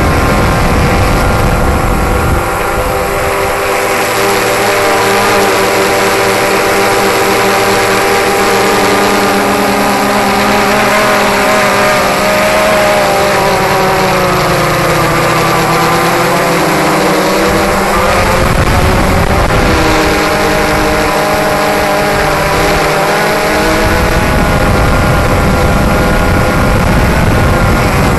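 DJI Phantom 3 quadcopter's four motors and propellers buzzing steadily from directly overhead, a stack of whining tones whose pitch drifts up and down as the drone manoeuvres and descends. A low rumble comes and goes underneath.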